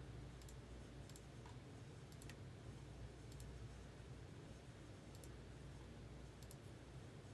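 Near silence: a faint low hum of room tone with a few faint, scattered clicks, about eight over the stretch, some in quick pairs.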